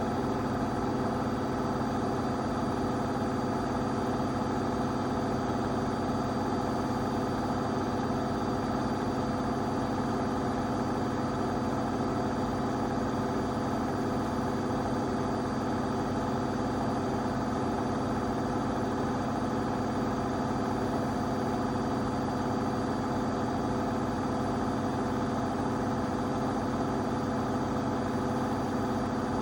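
AEG 8000-series washing machine running, its drum turning at a steady speed with an even motor hum and a thin high tone above it.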